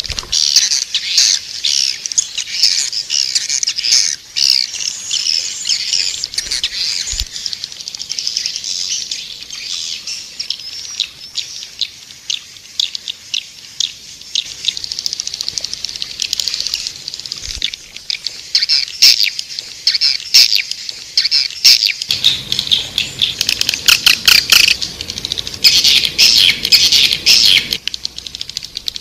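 Recorded swiftlet calls: dense, rapid chirping and twittering with fast clicks, busier and louder in the last third. This is a swiftlet lure call, played to draw swiftlets into a swiftlet house.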